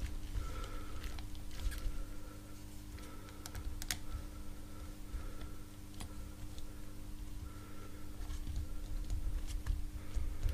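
Light, irregular clicks and taps of a small metal pick and fingers working at the metal end cap of an electric scooter motor, over a faint steady hum.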